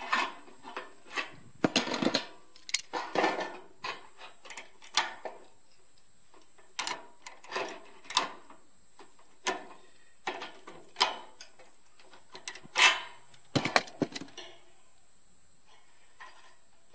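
Sheet-metal rain gutter being bent by hand with an adjustable wrench and locking pliers: irregular clicks, scrapes and small metallic clanks, the loudest about thirteen seconds in, over a steady faint high hiss.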